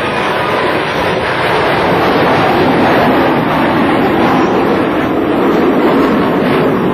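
Jet engine noise from Blue Angels F/A-18 Hornets flying overhead: a loud, steady roar.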